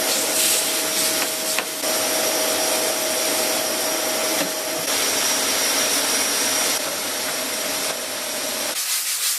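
An electric motor running steadily with a faint high whine, the kind of hum a power sander or shop vacuum makes, stopping suddenly near the end. Quick, regular rubbing strokes follow.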